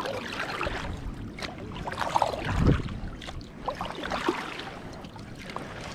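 Water splashing and lapping against a kayak on the sea as it is paddled, in irregular bursts, with one louder, deeper slosh a little under halfway through.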